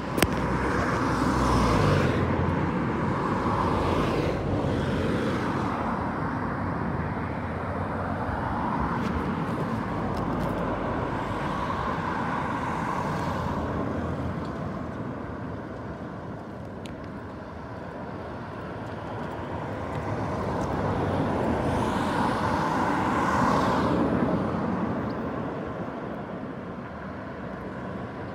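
Road traffic passing, a steady noise that swells and fades several times as vehicles go by.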